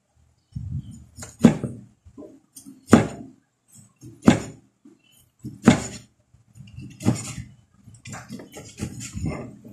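Large knife slicing through pork and striking a cutting board, one cut about every second and a half, then several quicker cuts near the end.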